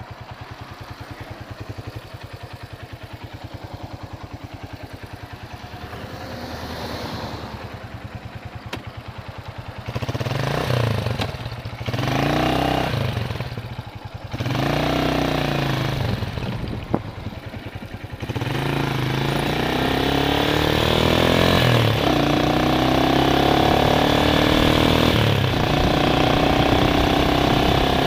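A motor vehicle's engine idling with a fast, even pulse. About ten seconds in it pulls away, rising and dropping in pitch four times as it shifts up through the gears. It then runs steadily at speed with a rising rush of air noise.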